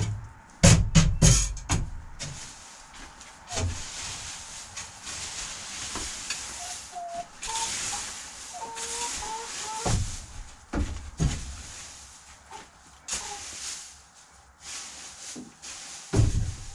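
A music beat for the first two seconds. It gives way to a long hissing rustle with scattered thumps, and a few faint short calls from the hens about halfway through.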